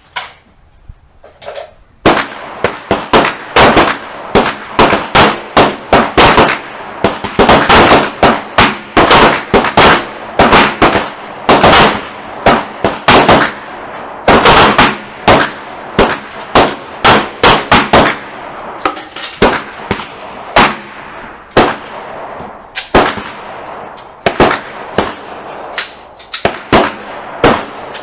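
Several pistols firing at once from a line of shooters: dozens of sharp shots, irregular and often overlapping, breaking out about two seconds in and going on without a pause.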